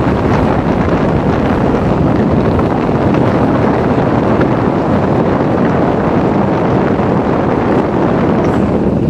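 Carrier window air conditioner running with its newly fitted fan motor, the fan blowing a steady, loud rush of air.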